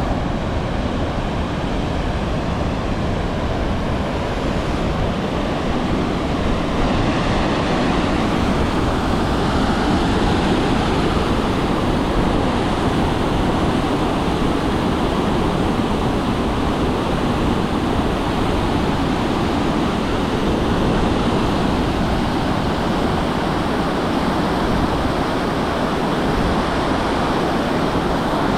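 Waterfall: a loud, steady roar of falling water, unbroken throughout.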